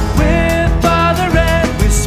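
A worship song played by a band, with voices singing a held, gliding line over a steady drum beat.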